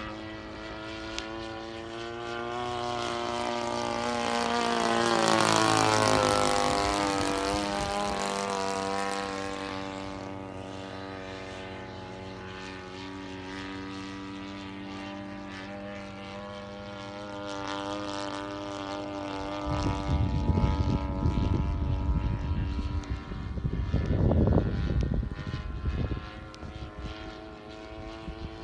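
Propeller-driven RC model airplane droning overhead as it makes a pass, its pitch rising as it gets louder, then dropping and fading as it flies away. Later come bursts of low rumble over the fainter drone.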